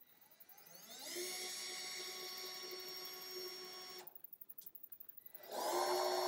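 Cordless drill driving screws into a corrugated metal shower-surround panel: the motor spins up to a steady whine, stops about four seconds in after a brief blip, then starts again, louder, near the end.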